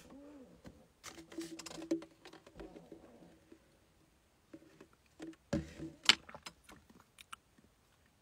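Sipping through a straw from a plastic cup, with small clicks and rattles from the cup; the loudest click comes about six seconds in.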